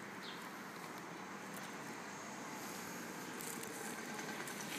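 Steady outdoor background noise, with a few light ticks near the end.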